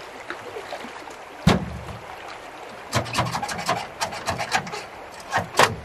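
Hard material being handled: a heavy thud, then a run of rasping scrapes and clicks, then two sharp knocks near the end.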